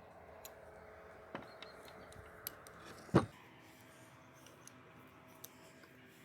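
Small metal clicks and handling noises of hand tools on a submersible well pump's casing while its hex-socket bolts are being undone, with one sharp, much louder knock a little over three seconds in.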